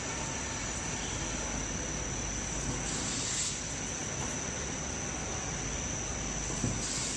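Automatic thin-blade slitter scorer for corrugated board running: a steady mechanical drone with a thin, constant high whine over it.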